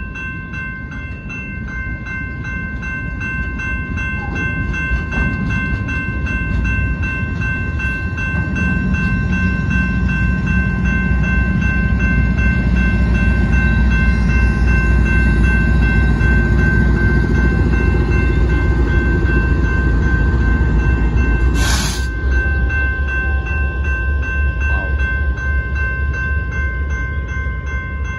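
Railroad crossing bell ringing steadily while loaded hopper cars of a BNSF rock train roll by, then a BNSF diesel locomotive at the rear of the train passes with a rumble that is loudest around the middle. A brief sharp hiss comes about two-thirds through, and a low rumble carries on as the train clears.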